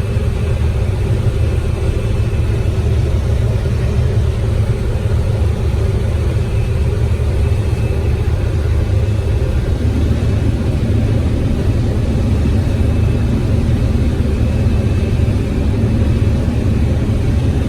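Combine harvester running steadily while harvesting corn: a loud, deep, even drone that thickens slightly about ten seconds in.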